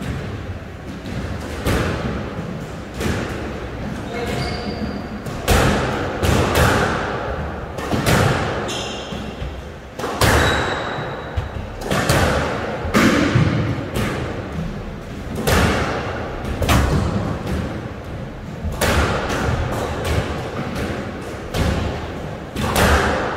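A squash rally: an irregular series of sharp knocks as the ball is struck by racquets and rebounds off the court walls, each with a short echo in the court. A few short high squeaks come in between.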